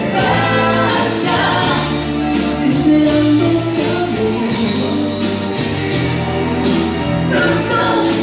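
A woman singing a Latin pop ballad live into a microphone over amplified accompaniment, with steady full-volume music.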